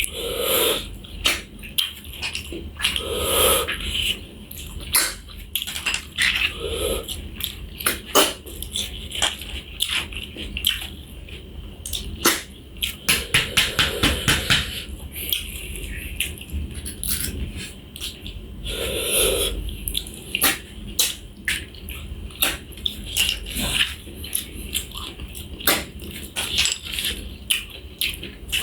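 Close-miked eating of pork and snails: wet chewing and slurping, with many small irregular clicks.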